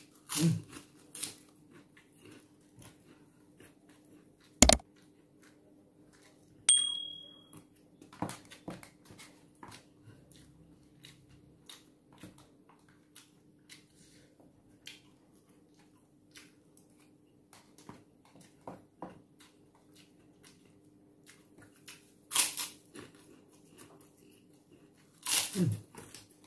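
Close-up eating sounds: chewing and a metal spoon clicking and scraping in a takeaway food box, with plastic wrap crinkling, scattered small clicks and rustles and one sharp click a little under five seconds in. A steady low hum runs underneath.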